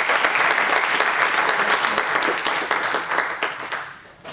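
Audience applauding, many hands clapping at once, dying away in the last second.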